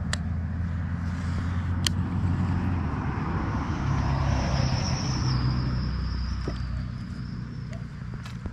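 A motor hums steadily, its pitch stepping up about three seconds in and easing off near the end. There are two sharp clicks in the first two seconds.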